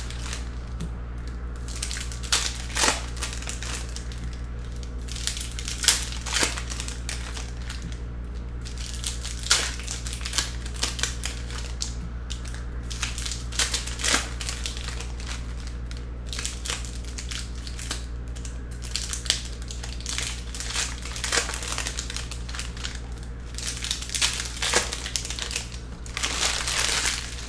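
Trading cards and foil pack wrappers being handled: crinkling and rustling broken by frequent sharp clicks and taps as cards are sorted and stacked on the table, with a denser rustle near the end. A steady low hum runs underneath.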